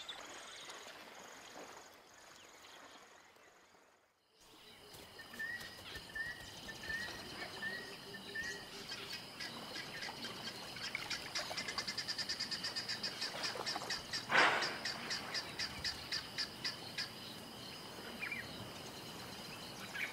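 Natural bush ambience that dips almost to silence for a couple of seconds before rising again: a steady high insect-like buzz, a bird giving a row of short repeated chirps, and a call pulsing several times a second. One louder call stands out about fourteen seconds in.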